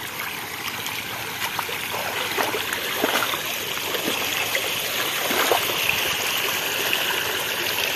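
Floodwater rushing in a shallow sheet over a submerged earthen embankment road into flooded paddy fields: a steady rushing and splashing that grows a little louder.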